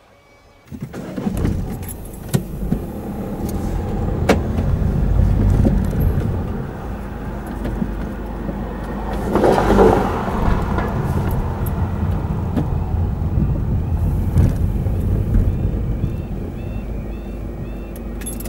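A car being driven slowly, heard from inside the cabin: steady engine and tyre rumble with scattered clicks and rattles, briefly louder about halfway through.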